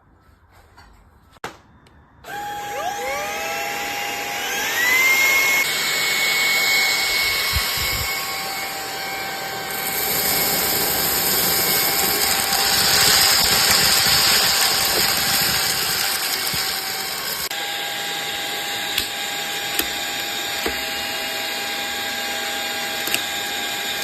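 Cordless handheld vacuum cleaner switched on after a click: its motor spins up with a rising whine over about three seconds, then runs with a steady high whine and rush of air, louder for a few seconds in the middle.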